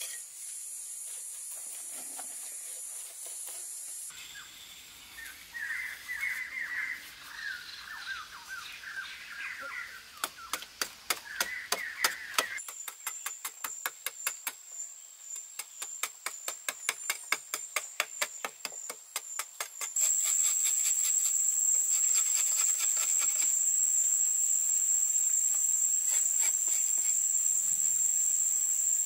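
Steady high-pitched forest insect drone, much louder in the last third. Before that come bird chirps and a run of quick, even scraping strokes: a machete carving a niche into a packed-clay wall.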